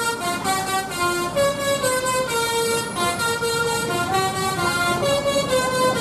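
A tour bus's telolet horn playing a quick tune: a string of short horn notes stepping up and down in pitch, over traffic noise.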